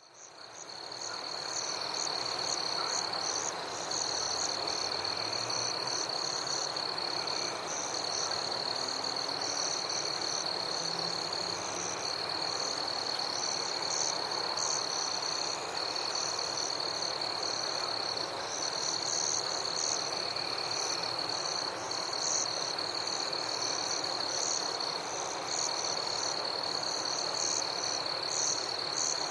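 Summer night forest ambience: a dense chorus of crickets and other night insects, with one steady high trill that breaks off briefly now and then and rapid pulsing chirps above it. It fades in over the first two seconds.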